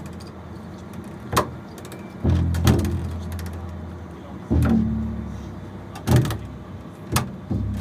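Solo double bass playing in a free, percussive style: two deep low notes, each struck and left to ring and fade over a couple of seconds, among about five sharp snapping knocks.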